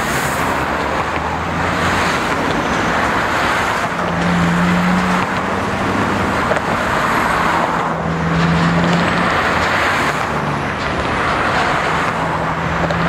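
Road traffic passing close by: tyre noise swells and fades as vehicles go past one after another, about every two to three seconds, with a low engine hum coming and going.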